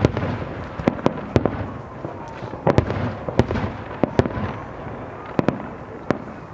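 Fireworks show: aerial shells bursting in an irregular string of about a dozen sharp bangs, with a continuous rumbling wash between them.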